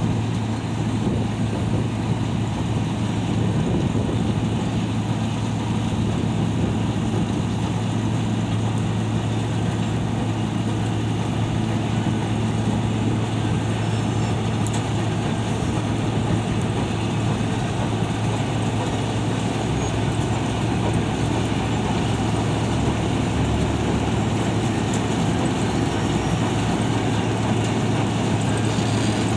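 Wirtgen cold milling machine at work milling off asphalt: a loud, steady heavy diesel drone mixed with the noise of the cutting drum and conveyor, unchanging throughout.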